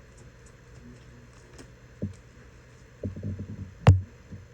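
Tarot cards being handled on a table: a soft knock, a quick run of low rattling taps, then one sharp tap as a card is laid down.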